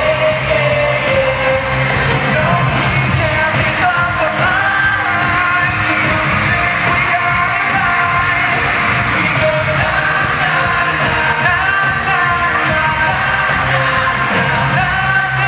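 Live pop music played loud through an arena sound system: male voices singing into microphones over an amplified band, with yells among the singing.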